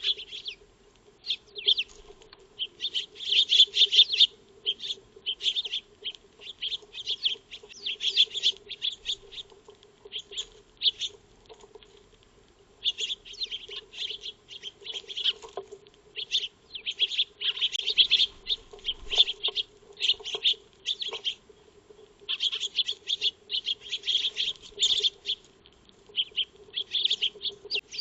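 Eurasian tree sparrows chirping, many short sharp chirps coming in irregular clusters and overlapping, with brief gaps between bursts.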